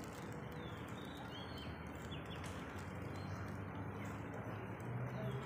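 Outdoor ambience: faint footsteps on paving stones, with a few birds chirping faintly in the background.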